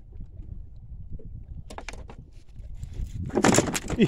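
Steady low wind rumble on the microphone over a small boat. About three seconds in comes a loud burst of splashing, as a hooked fish thrashes at the surface beside the landing net. It ends in a short falling vocal cry.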